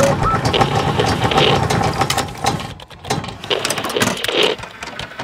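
Sound effects for an animated logo intro: a dense run of sharp mechanical clicks and ratcheting, with a couple of fuller swells about a second and a half and four seconds in.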